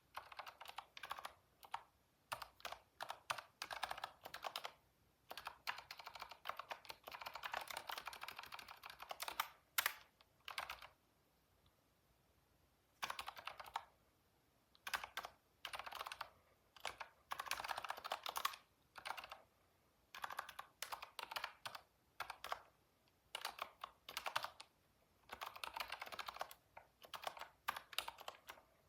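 Computer keyboard being typed on in bursts of rapid key clicks, with a few short pauses between runs.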